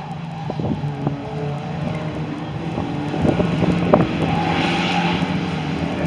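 Several saloon stock car engines running at racing speed, their pitches rising and falling, with a few short knocks, the loudest about four seconds in.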